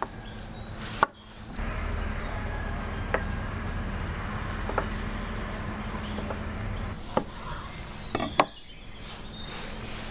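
Chef's knife slicing tomatoes on a wooden cutting board: a few sharp knocks of the blade striking the board, spaced one to two seconds apart, over a faint steady low hum.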